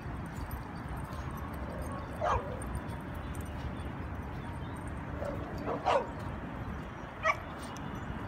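Dogs giving short yips: three brief high calls, about two seconds in, around six seconds in and near the end, over steady low background noise.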